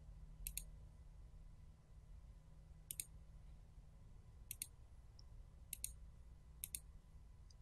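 Computer mouse clicking: five quick double clicks spread over a few seconds, against faint, near-silent room tone with a low hum.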